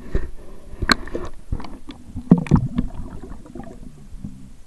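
Water sloshing and splashing close to the microphone, with scattered knocks and clicks, as a small brook trout is let back into the water.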